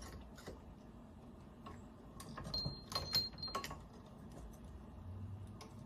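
Light metallic clicks and clinks of coilover parts and hand tools being handled while a part is worked into place. A cluster of clinks comes about two to three and a half seconds in, with a brief thin squeak of metal.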